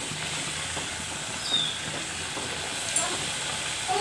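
Samosas deep-frying in hot oil: a steady sizzle as the oil bubbles around them, with a sharp click about three seconds in.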